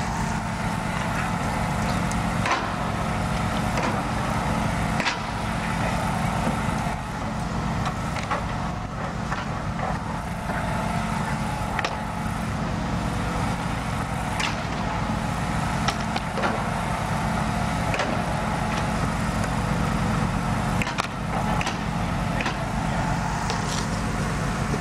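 A heavy engine running steadily, a low drone under everything, with scattered sharp knocks and cracks of wooden planks being pried apart and dropped, about one every two to three seconds.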